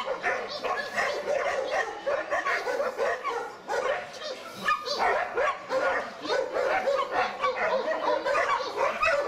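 Dogs fighting: a Rottweiler and a Doberman attacking another dog, with continuous overlapping yelps, cries and barks.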